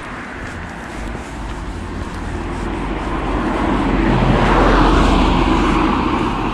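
A car passing close by on the street, its engine and tyre noise swelling to a peak about four to five seconds in, then fading as it drives away.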